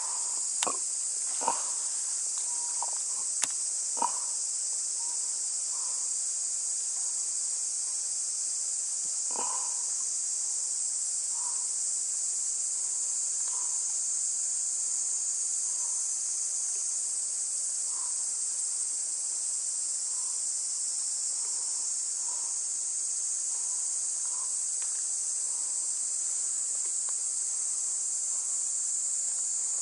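Steady high-pitched chorus of insects in summer vegetation, unbroken throughout. A few sharp clicks come in the first four seconds, and faint soft blips follow about every two seconds after that.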